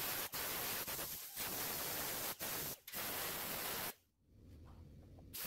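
Faint steady hiss, cutting out briefly several times and dropping to near silence about four seconds in.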